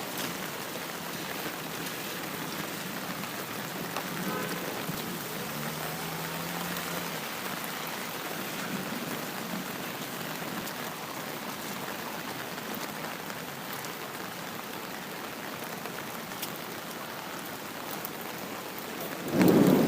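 Steady rain falling and pattering on surfaces, an even hiss throughout. A sudden louder noise swells up right at the end.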